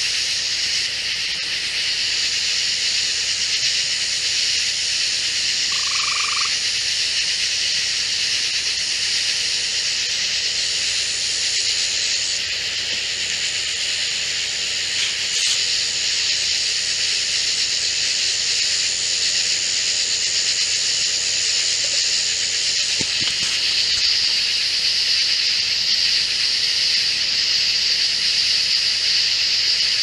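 Summer-night chorus of insects and frogs: a dense, steady, high-pitched insect drone, with a short lower call about six seconds in.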